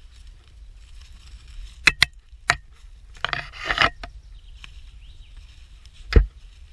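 Dry twigs and thin branches cracking and snapping under a hand: a few sharp cracks about two seconds in, a longer crackling rustle around three and a half seconds, then one dull thump near the end.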